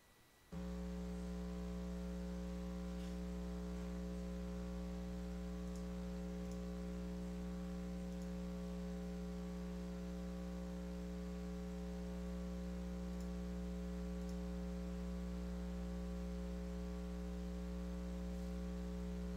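Steady electrical mains hum with a buzzy stack of overtones, starting about half a second in and holding at an even level without change.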